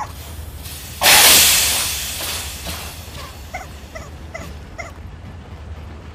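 A car tyre being punctured: a sudden loud rush of escaping air about a second in that fades over a second or two as the tyre goes flat. A squeak at the start and four short squeaks later on from a squeaky rubber chicken toy.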